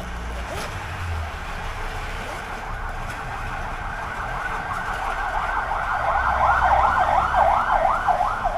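Emergency vehicle siren in a fast yelp, its pitch sweeping up and down about three times a second, faint at first and growing loud in the last few seconds.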